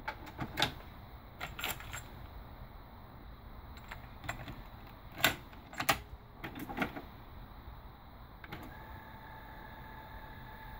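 Denon DRM-800 cassette deck being loaded: plastic clicks and clacks of the eject button, the cassette door and a cassette being pushed in and the door snapped shut, the loudest snaps about five and six seconds in. Near the end a button click, then the tape transport runs with a steady whine.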